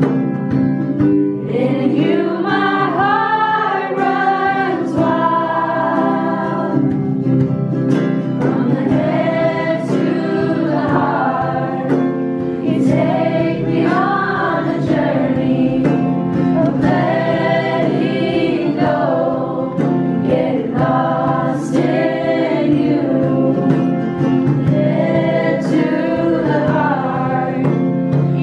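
A group of voices singing a worship song together, accompanied by strummed acoustic guitars and a hand drum.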